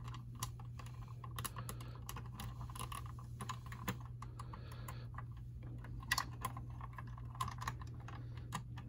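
Small hard-plastic clicks and taps as a G.I. Joe Motor Viper figure is fitted into the seat of a Cobra STUN toy vehicle and its hands pressed onto the handlebar pegs, irregular and scattered, the sharpest about six seconds in, over a steady low hum.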